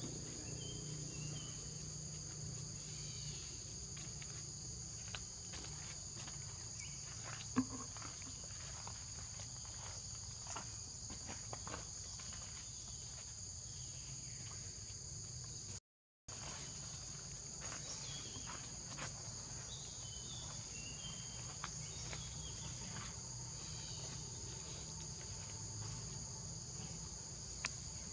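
Steady insect chorus, buzzing at two high pitches, with scattered faint taps and rustles and a few short chirps; the sound cuts out for a moment about halfway through.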